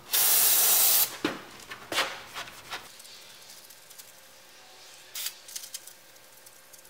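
Aerosol brake cleaner sprayed onto a rag in a single hiss of about a second, followed by a few short, faint rubs as the rag wipes the flywheel's friction surface.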